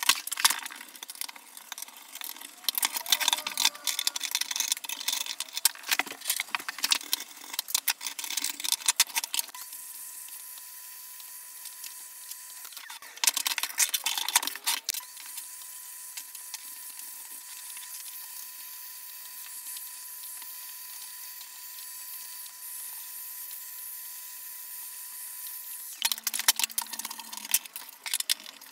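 Clattering, scraping and clicking of a PC power supply being taken apart by hand: the metal casing, fan, grille and screws handled and set down on a wooden bench. This comes in three spells, the first about nine seconds long and the others short, one around the middle and one near the end, with a steady faint hiss between them.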